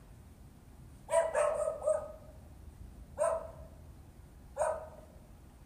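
A dog barking: a quick run of four barks about a second in, then two single barks about a second and a half apart. It is barking at a delivery worker stopped nearby.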